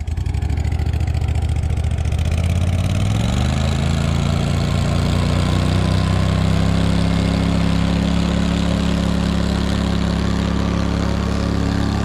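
Outboard motor on a small boat pulling away: it throttles up about three seconds in, the pitch rising, then runs steadily at speed.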